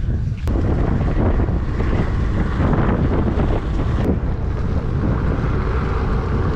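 Wind buffeting the camera microphone on a moving two-wheeler, with the engine running underneath as a steady low hum.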